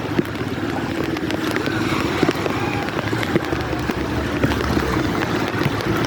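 A motor vehicle's engine running steadily, with water sloshing and the hiss of heavy rain.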